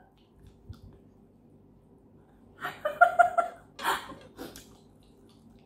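A woman laughing: a short voiced laugh about halfway through after a couple of quiet seconds, followed by a sharp breathy burst of laughter and a few softer breaths.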